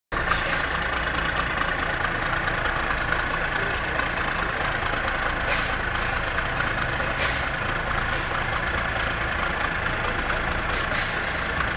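Diesel engine of a three-axle trial truck running steadily as the truck crawls slowly through deep mud. A few short hissing bursts come in the second half.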